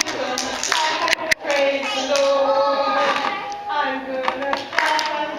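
Young children singing an action song together, with scattered hand claps among the voices.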